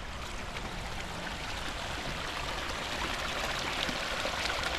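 A stream running, a steady rush of water that grows a little louder toward the end.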